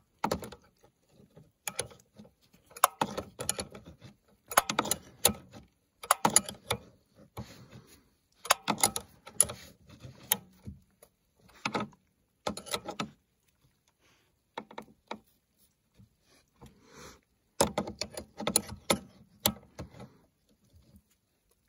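A 10 mm wrench clicking and clinking on a snowmobile battery terminal bolt as it is tightened, in short bursts of quick metallic clicks separated by pauses.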